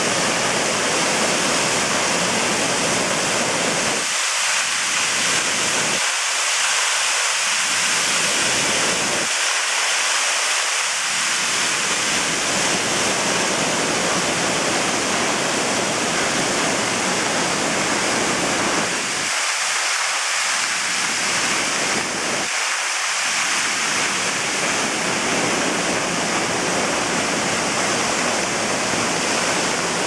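A 17-metre waterfall plunging into a rocky pool, a steady full rushing of falling water. Its low rumble drops away for a moment a few times.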